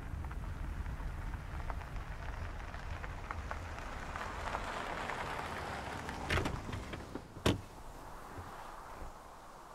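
Tyres of a Honda SUV crunching over a gravel road as it comes closer and pulls to a stop, followed by a sharp click as the car door is unlatched and opened about seven and a half seconds in.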